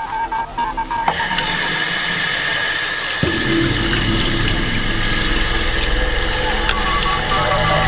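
Tap water running steadily into a bathroom sink and splashing over hands scrubbing an object under the stream; it starts abruptly about a second in.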